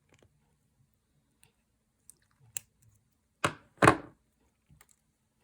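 Wire cutters snipping beading wire tails: a sharp click about two and a half seconds in, then two louder clacks close together about a second later.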